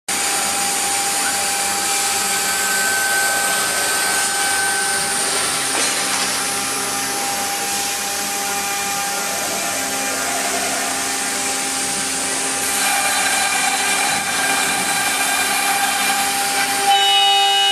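CNC router's 4.5 kW water-cooled spindle cutting 25 mm MDF: a steady machining noise with a high hiss and several held tones that shift a few times as the cut goes on.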